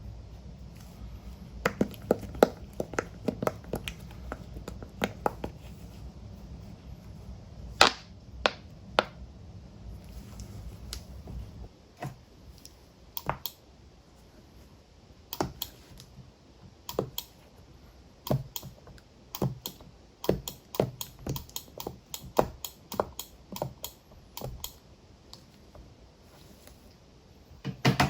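Silicone push-pop fidget toy shaped like a keyboard and mouse, its bubbles pressed one after another and popping in irregular clicks, sometimes in quick runs. A low hum lies under the first twelve seconds and then cuts off.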